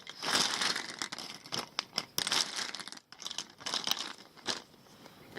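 Plastic BIC lighters clattering and rustling against each other as hands sift through a large pile of them, with irregular sharp clicks.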